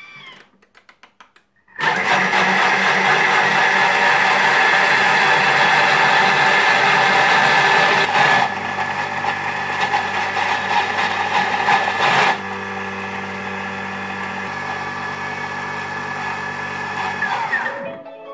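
Vorwerk Thermomix TM5 running at speed 8, its blade whipping cold milk and sunflower oil into cooking cream. After a few short clicks it starts about two seconds in and runs loud and steady. It steps quieter twice, around the middle and again about two-thirds through, and stops shortly before the end.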